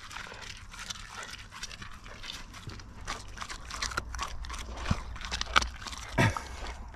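An animal eating fish scraps, with scattered short crunching and pecking clicks and a brief low sound about six seconds in.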